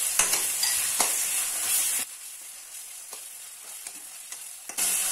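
Chopped onions, curry leaves and ginger-garlic paste sizzling in hot oil in a kadai as a spatula stirs and scrapes them, with a few sharp clicks of the spatula on the pan. The sizzle drops much quieter about two seconds in and comes back loud near the end.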